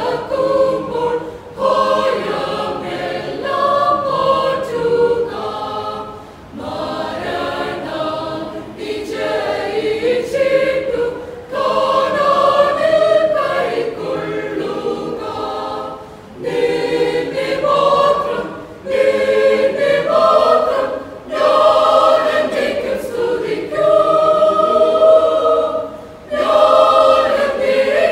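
Mixed church choir of women and men singing together in long phrases, with brief pauses between them.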